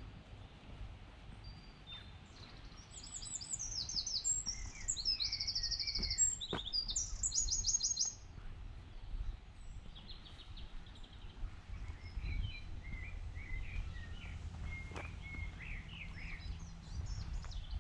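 Woodland birdsong: one bird sings a run of fast, high trilled phrases from about three to eight seconds in, followed by softer, scattered chirps from other birds. A steady low rumble runs underneath.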